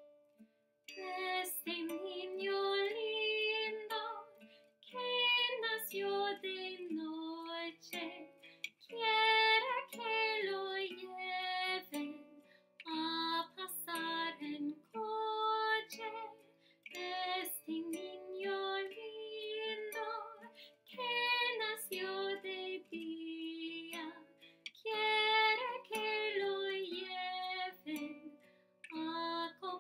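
A woman singing a slow lullaby in phrases about four seconds apart, over a plucked-string accompaniment.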